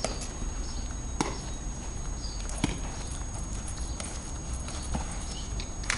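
Footbag being kicked in a rally, a sharp slap each time a foot strikes the bag, a second or more apart.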